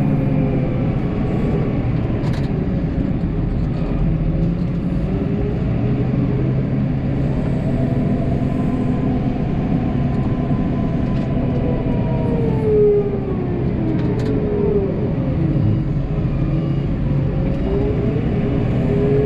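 Snowplow vehicle's engine running steadily under way, its pitch rising and falling as the revs change, with a couple of faint clicks.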